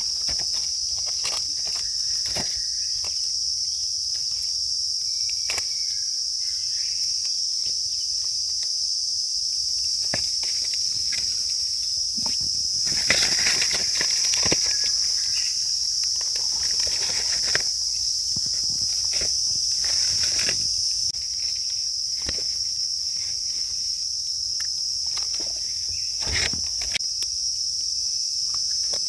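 A steady high-pitched insect drone, with irregular crackling and rustling of dry leaf litter underfoot and by hand, louder for a couple of seconds about halfway through.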